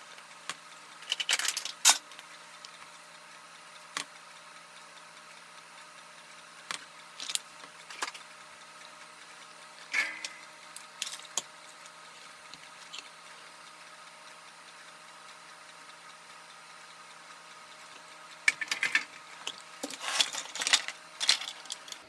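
Scattered clicks, taps and clatter of wire, a soldering iron and plastic toy parts being handled on a workbench, busiest about a second in and again near the end, over a steady faint hum.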